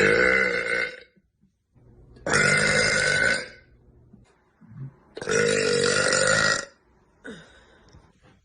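A young woman burping loudly three times, each burp lasting about a second, followed by a short, fainter sound near the end.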